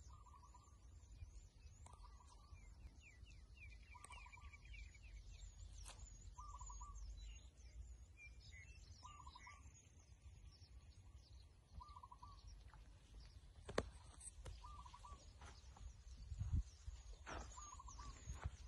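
Faint birdsong: one bird gives quick, repeated high chirps that slide downward, while another repeats a short lower call about every one and a half to two seconds, over a low rumble.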